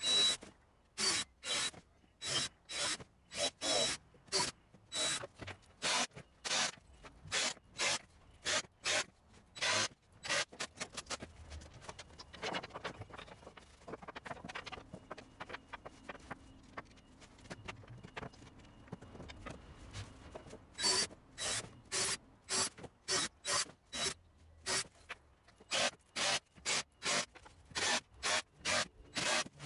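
Hand sanding a plywood tabletop: quick back-and-forth rasping strokes, about two a second, easing off for several seconds midway before picking up again.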